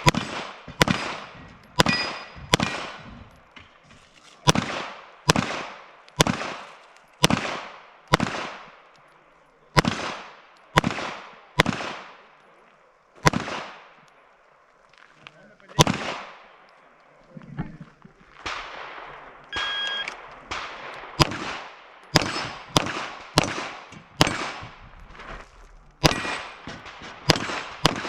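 Strings of rapid pistol-calibre gunshots fired on a practical shooting stage, a shot every half second or so with short pauses while moving between positions, each shot echoing briefly. A few hits set steel targets ringing with a short metallic ding.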